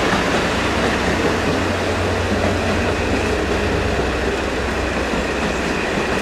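KiHa 183 series diesel multiple unit pulling into the station platform: the rumble of its wheels on the rails over a steady low hum from its diesel engines.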